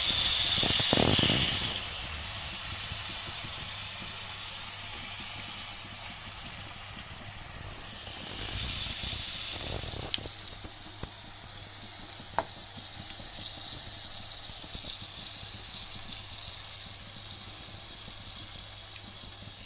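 Yogurt-marinated boneless chicken sizzling in hot oil and butter in a frying pan. The sizzle is loudest for the first two seconds, then settles to a steady, quieter hiss, with a couple of faint clicks partway through.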